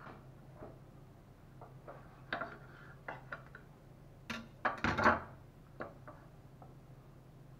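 A large kitchen knife cutting through a rolled lavash wrap and knocking on the plate beneath, a short cluster of sharp cracks and scrapes about halfway through. Before it, light rustles and taps as the wrap is handled on the plate, over a steady low hum.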